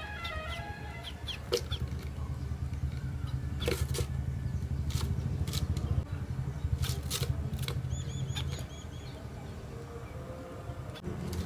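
Sparrows chirping: sharp single chirps scattered through, then a quick run of about seven even chirps about eight seconds in. A steady low rumble runs underneath.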